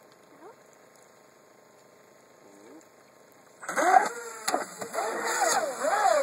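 Twin brushless motors of an RC speedboat quiet at first, then suddenly opened up about two-thirds of the way in: a loud whine that rises and falls with the throttle over the hiss of spray. A single sharp crack comes about a second after the start.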